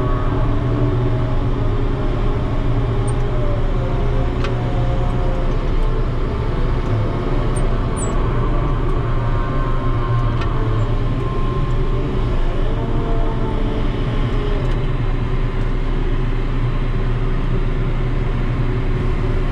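Ship's deck crane running as it works: a steady low machinery hum with wavering whining tones that rise and fall with the load. Two brief clicks come through, about four and ten seconds in.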